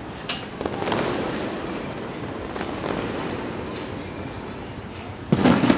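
Aerial fireworks bursting: a sharp bang just after the start and a louder one near the end, with a steady background din between.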